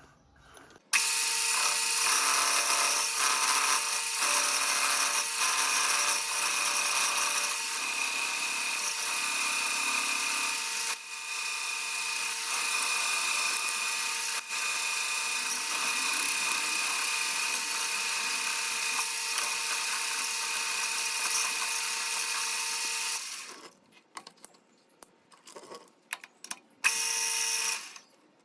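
Metalworking machine tool running with a steady high whine and hiss. It starts about a second in, stops near the end, then gives a few short bursts.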